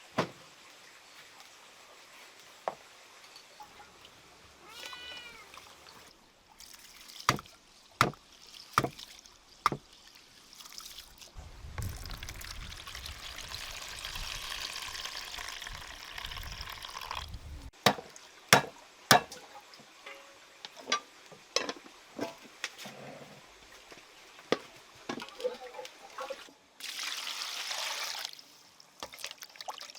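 Water splashing and pouring in stretches, with several sharp knocks and one short call with a bending pitch about five seconds in.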